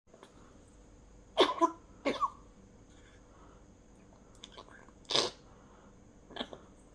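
A person coughing: four separate coughs spread over several seconds, the first the loudest and the last the faintest.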